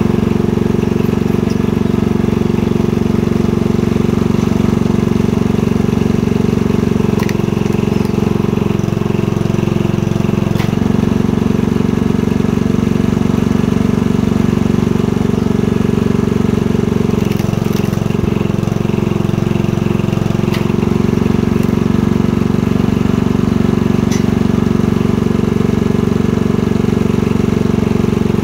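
Honda 10.5 horsepower petrol engine running steadily, driving the hydraulic pump of a log splitter. Its note shifts a few times as the hydraulic rams take load, and there are a few faint sharp clicks.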